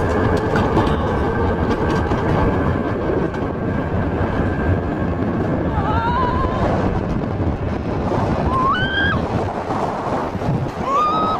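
Alpine coaster sled running fast down its tubular steel rails: a steady, loud rumble and rattle with wind on the microphone. Three short rising squeals come in the second half.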